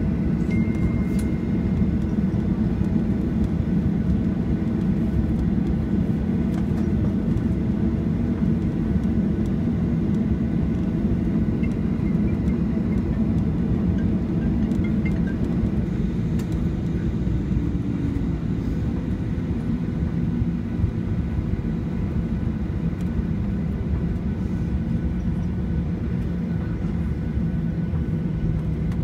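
Steady low rumble inside a jet airliner's cabin as it taxis after landing, its engines at idle.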